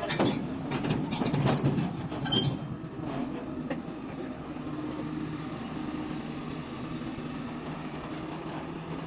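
Heavy excavator's diesel engine running steadily, with loud metal clanking and high squeals over the first three seconds.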